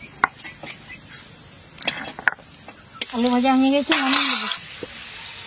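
Stone grinding pestle knocking and scraping on a stone grinding slab as tomatoes are crushed, in short scattered knocks. About three seconds in, a loud, drawn-out call, held for about a second and a half, covers it.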